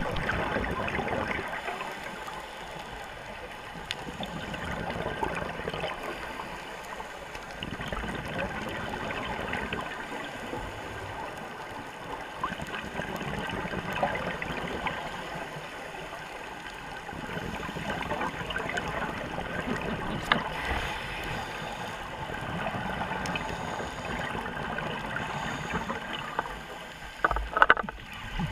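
Scuba regulator breathing and exhaled bubbles, heard underwater, swelling and fading every four or five seconds with each breath. A few sharp knocks come near the end.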